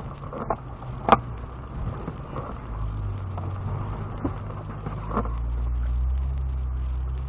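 Lexus GX470's V8 engine running at low revs, heard inside the cabin as a low rumble that grows louder about five seconds in. A few short sharp knocks and creaks cut through it, the loudest about a second in.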